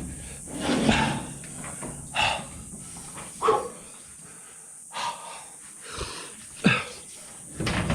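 A man breathing hard in short, heavy huffs and puffs, about one a second, some with a strained grunt, from the exertion of hauling a heavy hydraulic lift ram.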